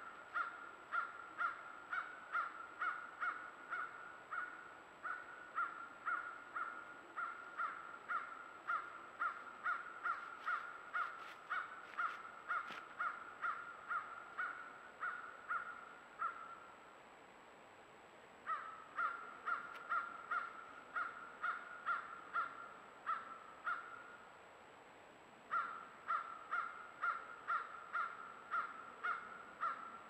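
An animal calling over and over, short harsh calls about two a second, with two brief pauses.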